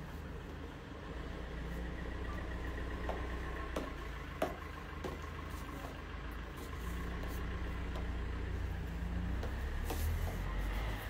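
A steady low background hum, with several sharp clicks about three to five seconds in from high heels stepping on a tiled floor.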